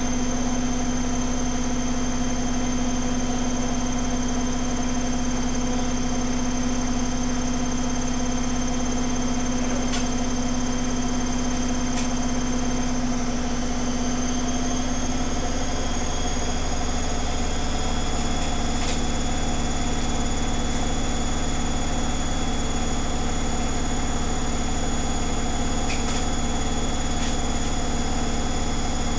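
Zanussi FlexiDose ZWG7160P washing machine spinning an unbalanced load at about 1000 rpm: a steady running hum whose pitch shifts slightly about halfway through. Sharp crackles break in about ten seconds in, again around twelve and nineteen seconds, and twice near the end. The owner cannot tell whether the crackling is electrical or mechanical, and it occurs only on this unbalanced spin.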